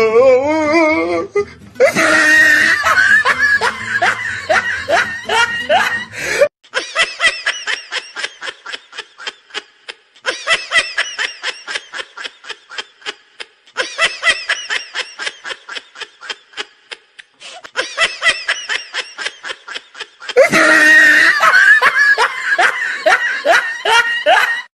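Hearty laughter in rapid, rhythmic ha-ha-ha pulses, going on in long stretches broken by a few short, abrupt gaps. At the start a voice sweeps upward in pitch.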